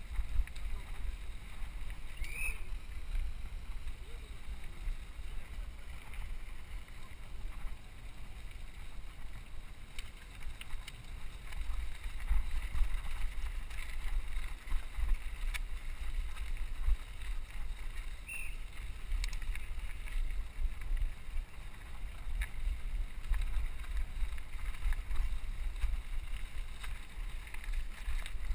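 Mountain bike riding fast over a gravel and dirt trail, heard from a helmet camera: wind buffeting the microphone over the rumble of the tyres, with scattered sharp clicks and rattles from the bike.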